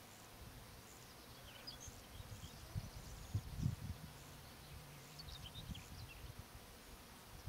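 Wind buffeting the microphone in low gusts, strongest about three and a half seconds in, with faint, high, short bird chirps in two spells.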